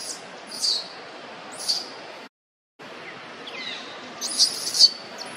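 Infant macaque crying in short, high-pitched squeals: two about a second apart, then, after a brief dropout of the sound, a quick run of several louder squeals near the end.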